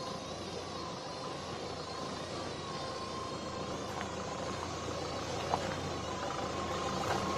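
Jeep engine running as it approaches over rough ground, a steady droning note that grows slowly louder, with a couple of brief knocks partway through.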